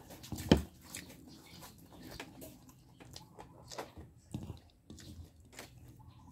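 A person chewing a mouthful of rice, boiled sweet potato leaves and dried fish close to the microphone: irregular small wet clicks and smacks, with one sharper, louder click about half a second in.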